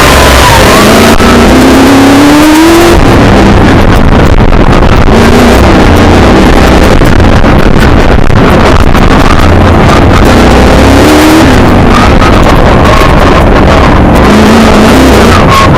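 Milner R5 racing car's 5-litre V8 engine, heard from inside the cabin, running hard under load with its pitch climbing as it revs up about a second in, again around the middle and near the end, over a constant loud noise of the car at speed.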